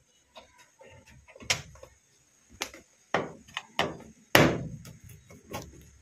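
Irregular sharp knocks and clacks on the plastic cabinet of a Whirlpool top-load washing machine as a screwdriver works out the screws holding its top panel. About six louder knocks come among smaller clicks.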